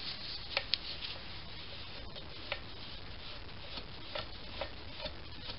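A few light, irregular clicks and taps of small metal parts of a brass model steam engine being handled and fitted by hand, over a steady hiss.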